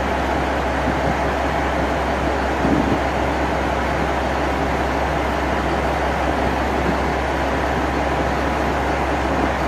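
JR Shikoku 1200-series diesel railcar running steadily with its engine idling, a low hum under even mechanical noise. A brief louder rumble comes about three seconds in.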